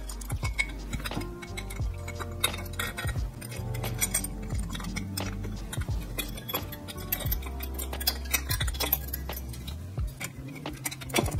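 Light metallic clinks and taps of a camshaft and cam chain being worked into a motorcycle cylinder head, over background music.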